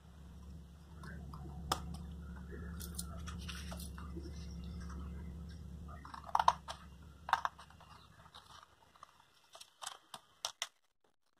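Sheets of stiff paper pattern crinkling and rustling as they are cut with scissors and handled, with several sharp crisp clicks. A low steady hum underlies it and stops about nine seconds in.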